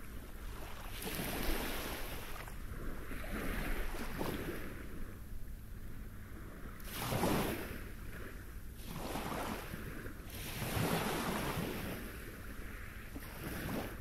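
Small waves breaking and washing up a pebble beach, one rush of water every two to three seconds, the loudest about seven seconds in.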